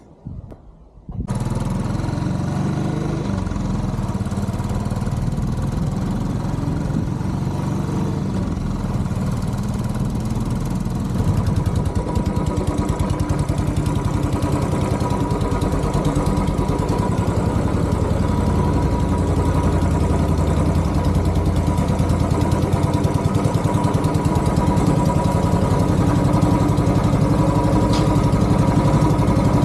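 Motorcycle engine catching about a second in and then running steadily at idle, getting a little louder about eleven seconds in.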